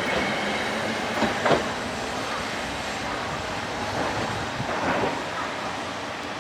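Hankai Tramway streetcar running over the crossing, a steady rumble with a few short clacks from the wheels over rail joints, about a second and a half in and again near five seconds.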